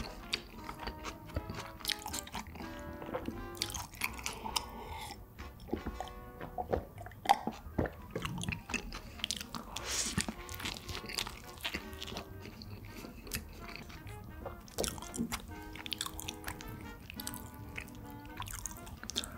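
A person chewing and biting into a burger, with many short sharp mouth sounds, over background music with held notes.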